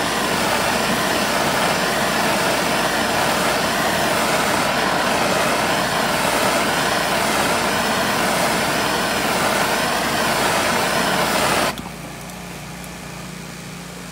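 A gas torch's flame hissing steadily as it heats a steel part toward a purple temper colour, then shut off suddenly near the end, leaving a quieter low hum.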